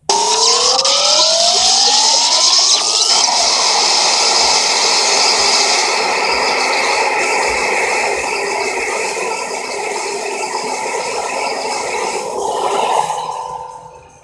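SpaceGodzilla monster roar sound effect. It is a long, rough, noisy roar that starts abruptly, with its pitch rising over the first three seconds. It then holds for about ten seconds and fades out near the end.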